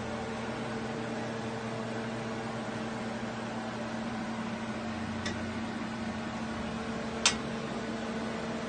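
Steady mechanical hum, with a faint click a little past five seconds in and a sharper, louder click about seven seconds in.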